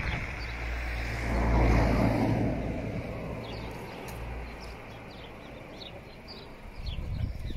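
A car driving past on the road, swelling to its loudest about two seconds in and then fading away.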